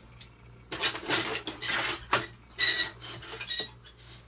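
Hard 3D-printed plastic parts clattering and scraping against each other and the board as they are shuffled into line. The scraping comes in bursts from about a second in, with a couple of sharp clicks and short clinks.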